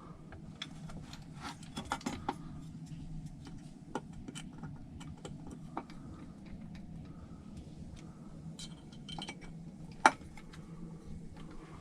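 Scattered small clicks and clinks of small parts and hand tools being handled during assembly, with one sharper click about ten seconds in, over a steady low hum.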